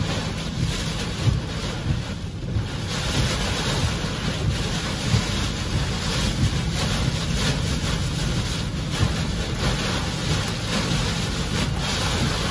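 Derecho winds and driving rain battering a car, heard from inside the cabin: a steady roar with heavy low buffeting, growing a little hissier after about three seconds.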